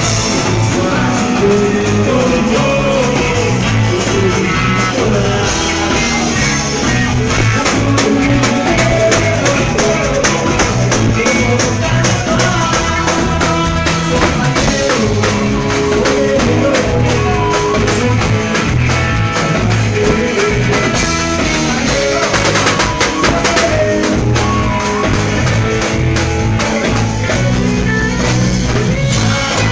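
Live axé band playing loud, continuous music, with guitar and drum kit keeping a steady beat.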